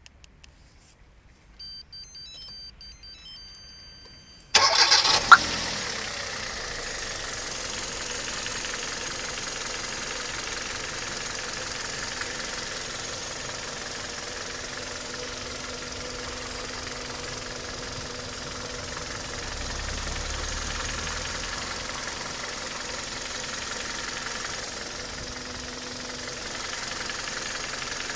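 Kia Cerato 1.6 engine cranked and started about four and a half seconds in, after a few seconds of faint high tones, then running steadily at idle. The knock under scrutiny is a knock (стук) from this engine.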